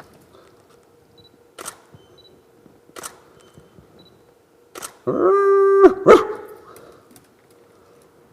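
DSLR camera shutter firing four times, a second or so apart, as portraits are taken. Halfway through comes a louder, steady pitched sound of about a second.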